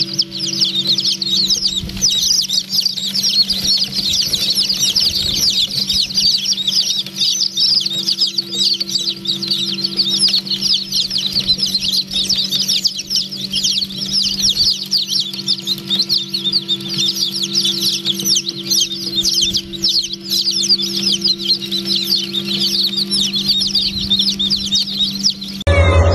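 A large flock of young fancy-breed chicks peeping constantly, many high chirps overlapping, over a steady low hum. Near the end the sound cuts to a louder, deeper hum.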